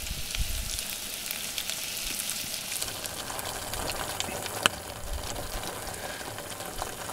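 Chicken and onion sizzling in a pot on a camping gas stove: a steady frying hiss scattered with small crackles. About three seconds in, the pot holds the chicken in curry sauce and the sound turns to a thicker simmer. A single sharp pop comes just before five seconds.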